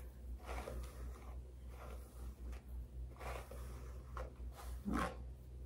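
Paddle brush and fingers working through long wet hair while detangling: faint, repeated soft scratchy strokes over a low steady hum.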